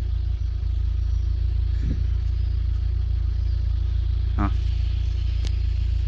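Car engine idling, a steady low rumble. A faint bird chirp comes near the end.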